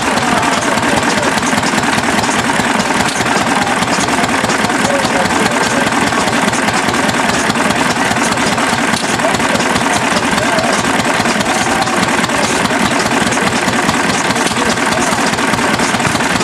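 Hit-and-miss stationary gas engine running steadily, driving a water pump, with water gushing and splashing continuously into a galvanized stock tank.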